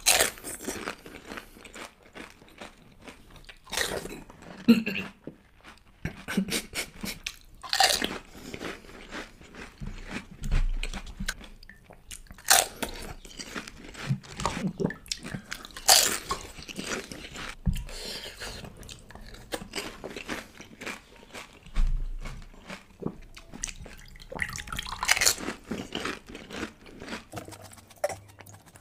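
Close-miked crunching and chewing of pani puri: crisp hollow fried puri shells cracking as they are bitten, with wet chewing between. Bites come at irregular intervals every second or two.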